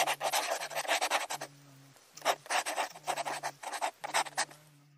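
Rough rubbing and scraping close to the microphone in quick, dense strokes, coming in spells, with a low steady hum in the gaps.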